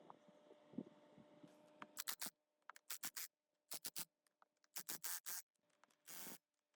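A faint steady hum with a few small clicks, then from about two seconds in a series of short scraping strokes, each under half a second, with silent gaps between.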